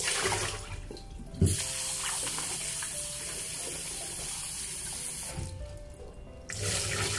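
Tap water running into a sink as soaked kumquats are rinsed by hand, with a single knock about one and a half seconds in. The flow stops briefly near the end, then runs again.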